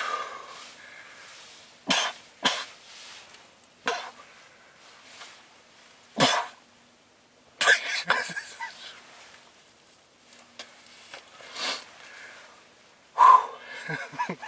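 A man coughing again and again in short fits, choking on the black-powder smoke left in the blind by a flintlock shot.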